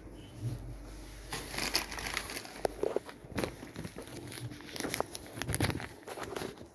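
Irregular crinkling and rustling with sharp crackly clicks, getting louder and busier from about a second and a half in.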